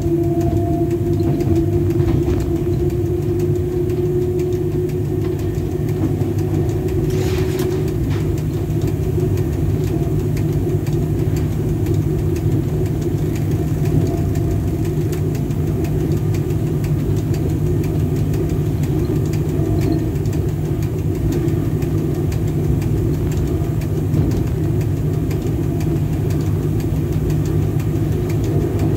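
Cab noise of a VL10 electric locomotive under way: a steady hum and rumble from the running locomotive and its wheels on the rails. A steady tone over it fades out about eight seconds in.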